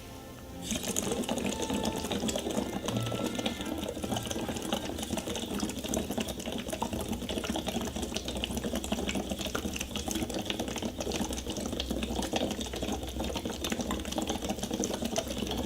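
Air blown through a tube into a water-filled breathing trainer, bubbling steadily and evenly for about fifteen seconds: one long, slow exhale against the water's resistance. It starts under a second in and stops near the end.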